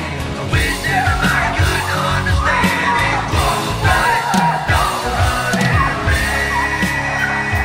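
Rock music with a singing, shouting vocal over a steady drum beat and bass.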